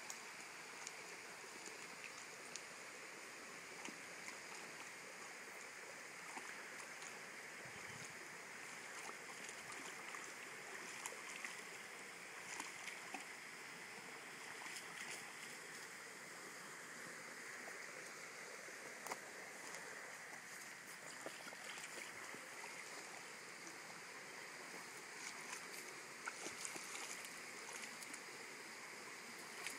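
Creek water flowing steadily over a shallow, stony bed, with scattered small clicks and splashes.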